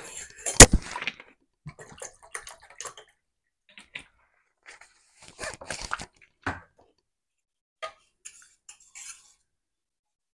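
Kitchen vessels clattering and knocking on a counter while water is fetched, with water splashing and dripping between the knocks. The loudest sound is a sharp clank about half a second in.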